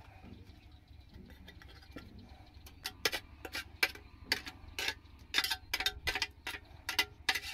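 Stainless steel box grater being knocked and tapped to clear off grated onion: sharp, irregular metallic clicks, about three a second, starting about three seconds in after a quieter start.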